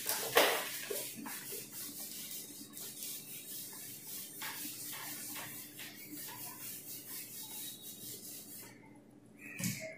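Whiteboard eraser rubbing back and forth across a whiteboard in repeated scrubbing strokes, wiping off marker writing. The strokes are strongest in the first second and stop about nine seconds in.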